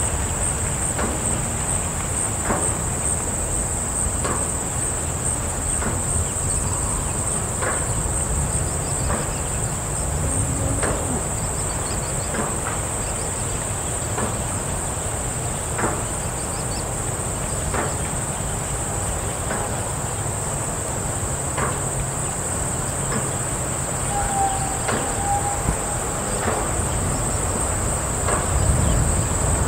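Farm background ambience: a steady, high-pitched insect chorus over a low rumble, with faint knocks every second or two and a short whistle-like call about three-quarters of the way through.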